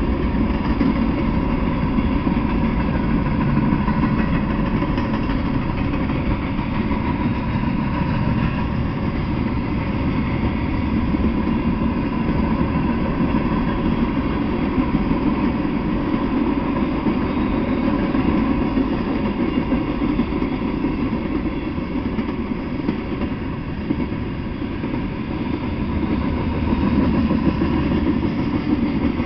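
Freight train of covered hopper and tank cars rolling past, a steady noise of wheels on rails that holds at about the same level throughout.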